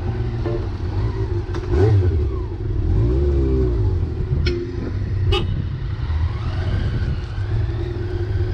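Motorcycle engine running on the road with steady low rumble and road noise, with a few brief rising and falling pitch glides and two sharp clicks around the middle.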